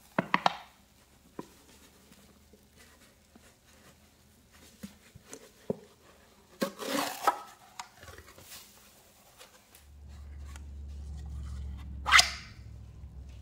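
Wet cleaning-powder paste squished and crumbled by hand, giving irregular short squelches and crunches, a few with a brief airy squeak, the loudest one near the end.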